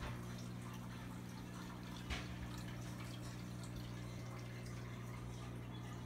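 Aquarium filter running: water trickling and dripping into the tank over a steady low motor hum. There is a single sharper knock about two seconds in.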